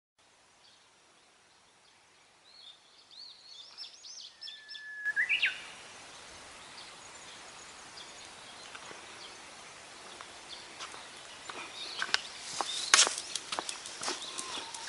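Small birds chirping and calling for a few seconds, then a steady open-air hiss. From about ten seconds in come quick, irregular taps of footsteps on a paved path.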